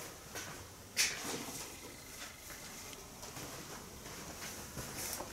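Hands handling loose parts on a workbench: one sharp click about a second in, then faint small taps and rustles.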